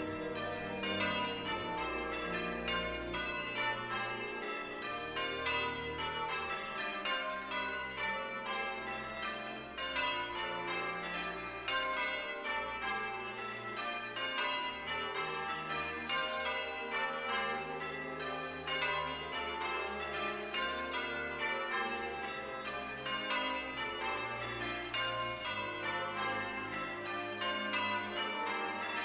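Church bells rung in changes from the tower: a full peal of bells striking one after another in an even, unbroken rhythm, each stroke ringing on.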